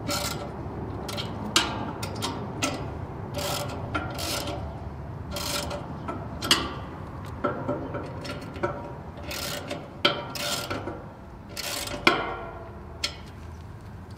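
Socket ratchet wrench ratcheting in short rasping strokes, irregularly about one or two a second, with a few sharper metal clicks, as the nuts on the underside of the dish's steel azimuth mount are tightened.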